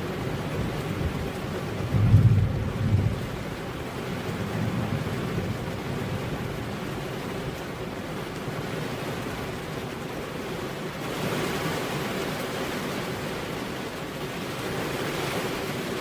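Steady rain falling, with a short low rumble of thunder about two seconds in; past the middle the rain's hiss grows louder and brighter.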